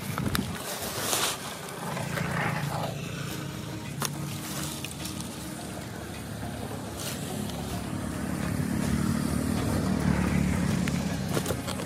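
An engine running steadily, growing louder about eight seconds in, with a few sharp clicks over it.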